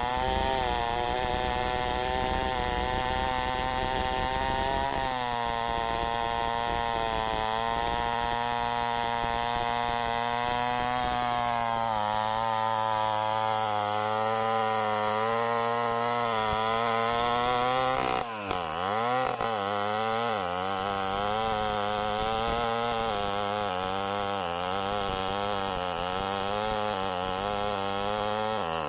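Stihl 070 chainsaw, a big two-stroke, running at full throttle while cutting into a large hardwood trunk, its pitch wavering as the load on the chain changes. About 18 seconds in the revs drop sharply and quickly climb back.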